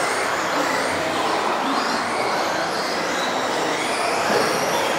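Several RC off-road race cars running laps: high motor whines that rise and fall as they accelerate and brake, over a steady wash of running noise.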